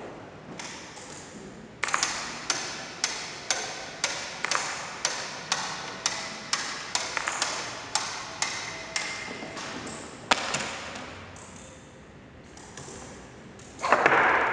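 Mechanism of an electro-mechanical baboon automaton tapping steadily, about two sharp taps a second with a short metallic ring, ending in one louder strike. Near the end comes a louder, rougher burst of mechanical noise.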